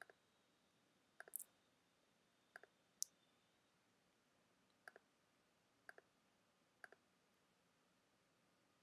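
Faint computer mouse clicks, mostly in quick pairs, seven times over about seven seconds, with near silence between.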